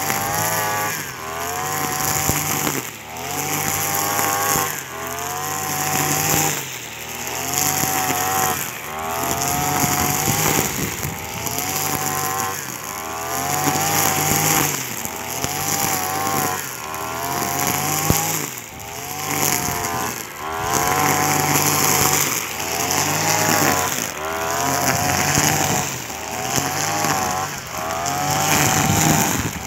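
Petrol brush cutter (string trimmer) running at high revs while cutting tall grass. Its engine note sags and recovers every second or two as the line bites into the grass on each swing.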